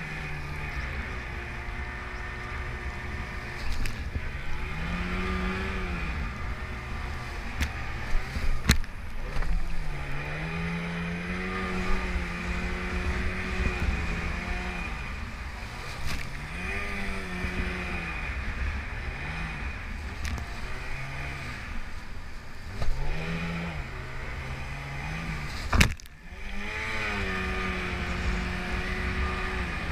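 Inflatable rescue boat's outboard motor running through surf, its pitch rising and falling again and again as the throttle is eased and opened over the waves. Wind and water noise run underneath, with a few sharp hits, the loudest near the end.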